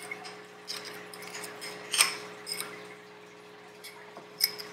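A fork clinks and scrapes against a small ceramic bowl as beaten egg yolk is scraped out onto raw chicken pieces. The sharpest clink comes about two seconds in and another near the end, over a faint steady hum.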